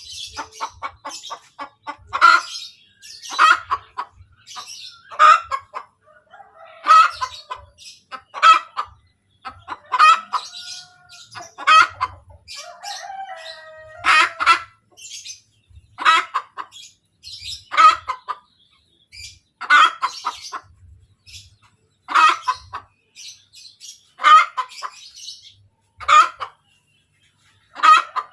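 Hen cackling her egg song after laying: a loud call every second and a half to two seconds, with quick short clucks in between.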